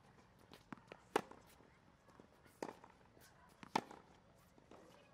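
Tennis ball struck by racket in a groundstroke rally: three sharp hits about a second and a half apart, with lighter taps and footsteps between.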